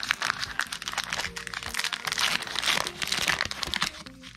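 Plastic wrapper of a trading-card fat pack crinkling and tearing as hands peel it open, a rapid run of sharp crackles that eases off near the end.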